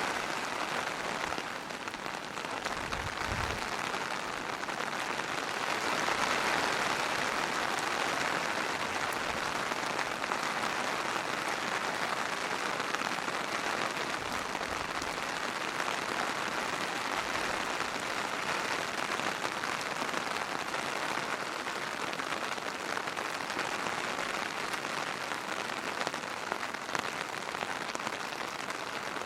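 Steady rain falling on surfaces, a dense, even patter with no let-up, with a few soft low thumps here and there.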